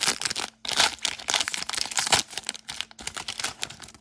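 Foil trading-card pack being torn open and crinkled by hand, a dense, irregular crackling with a short pause about half a second in.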